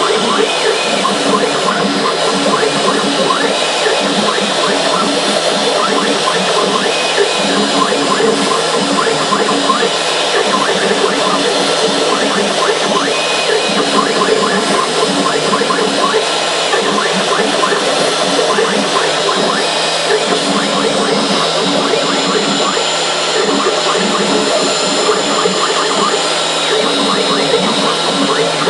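CNC router spindle running steadily while its cutter mills a pocket in a green foam block. Lower tones start and stop every second or so as the head moves back and forth.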